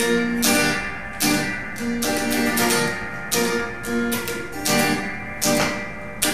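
Electric guitar strummed in a steady rhythm, ringing chords with no vocals: an instrumental break in the song.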